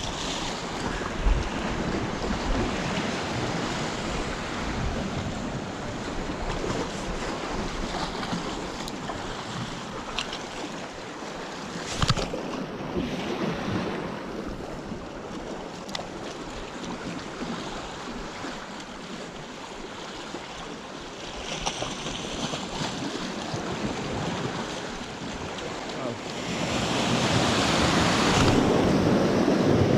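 Sea water washing and surging along a rocky shore in a strong tidal current, with wind buffeting the microphone. There is a single sharp knock about twelve seconds in, and the wash grows louder near the end.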